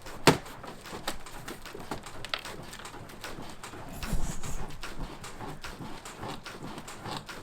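Footsteps walking over rough ground: irregular knocks and scuffs, with a sharp knock about a third of a second in and heavier thuds around four seconds in.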